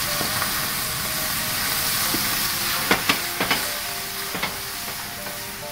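Freshly added raw chicken pieces sizzling in hot oil in a stainless steel pot, the sizzle easing off slowly. Midway, a wooden spatula knocks against the pot five or six times as the chicken is stirred.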